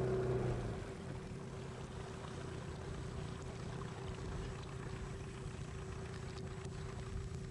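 Yamaha outboard motor running, then throttled back about a second in to a steady, quieter idle.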